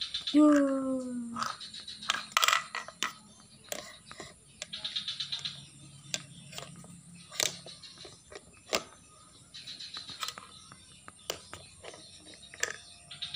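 Plastic toy cooking-set pieces clattering and knocking together as a toddler handles them, with a few quick rattling runs. A short falling vocal sound from the child about half a second in.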